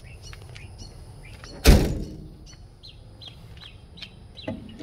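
A pickup truck's steel cab door slammed shut once, about a third of the way in, with a short low ring after the bang. Birds chirp briefly and repeatedly throughout.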